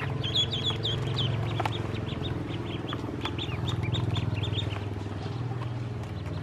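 A group of ducklings peeping: many short, high chirps, several a second, overlapping. A steady low hum runs underneath, with a few faint clicks.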